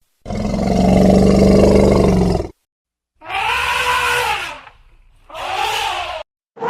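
Angry elephant calling three times: first a long, low call of steady pitch, then two shorter, higher calls whose pitch rises and falls.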